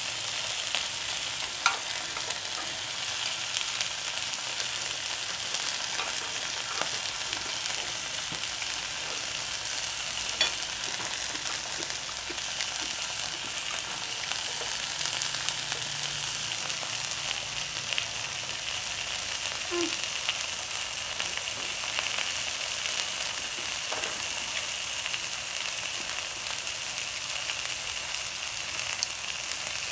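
Slices of marinated beef sizzling on a hot nonstick grill pan: a steady frying hiss with scattered small pops.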